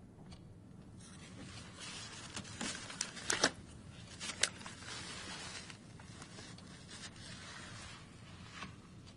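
Faint rustling and scraping handling noises, with a cluster of sharp clicks and knocks around the middle.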